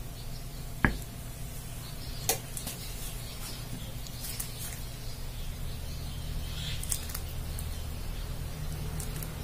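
A small ceramic bowl set down once with a sharp knock on a wooden board, followed by a lighter click and soft handling of dates in the bowl by gloved fingers, over a steady low hum.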